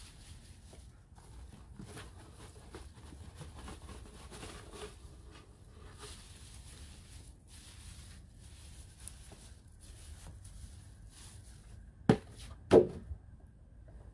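Fresh leafy weeds rustling softly as they are stuffed and pressed down into a plastic compost bin, followed near the end by two sharp knocks less than a second apart.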